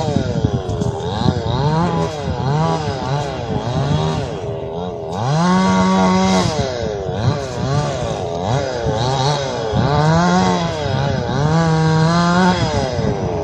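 Two-stroke chainsaw revving up and down repeatedly, held at full throttle for a second or so several times, as when cutting into wood.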